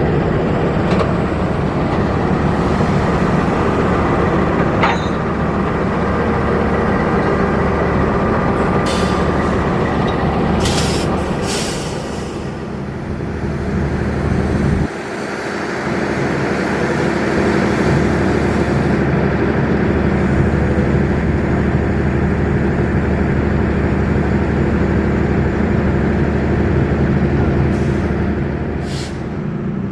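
Diesel-electric locomotive of the KAI CC206 class running steadily close by, its engine hum unbroken, with several short hisses of air. The sound changes abruptly about halfway through.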